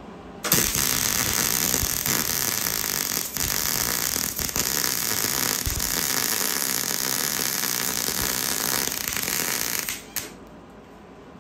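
Wire-feed (MIG) welding arc crackling steadily as a bead is run on galvanized steel strut channel. It starts about half a second in and cuts off suddenly about a second and a half before the end.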